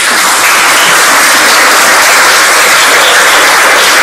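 Audience applauding, a loud, steady clapping from many hands.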